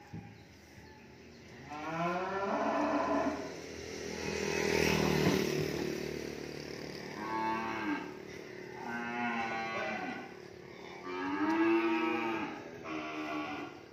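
Cattle mooing, about six calls one after another starting about two seconds in.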